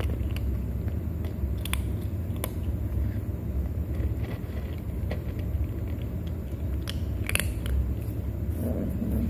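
A cat crunching dry kibble, with scattered sharp crunches of the pellets, over a steady low rumble.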